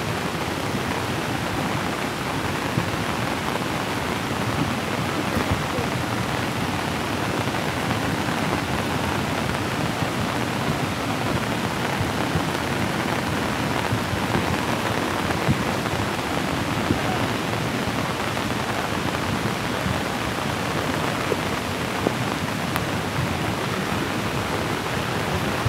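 Heavy rain falling steadily in a constant, even hiss.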